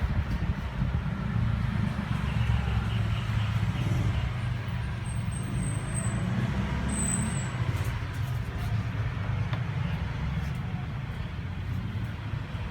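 Steady low rumble of a car's engine and road noise, getting a little louder about a second in.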